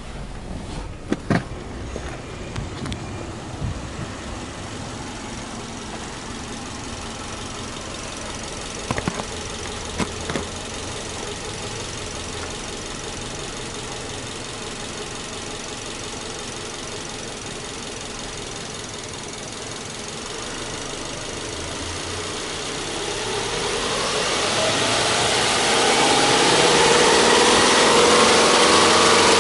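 Subaru Legacy Touring Wagon 2.5i's EJ25 flat-four boxer engine idling, heard at the open engine bay, then revved up gradually from a little over twenty seconds in, its pitch climbing and held high near the end. A few sharp knocks in the first few seconds and again around ten seconds in.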